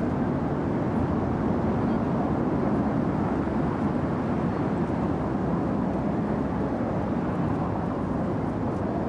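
Steady, unbroken noise of busy city traffic.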